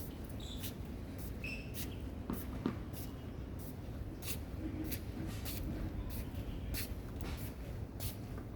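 Tennis being played on a court: a string of short, sharp clicks from ball strikes, bounces and footsteps, with a brief shoe squeak in the first couple of seconds, over a steady low background rumble.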